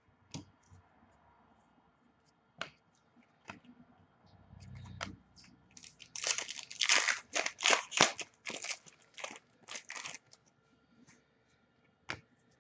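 Hockey card pack wrapper being torn open and the cards handled: a few scattered clicks, then about four seconds of loud crinkling and tearing, with two sharp card clicks near the end.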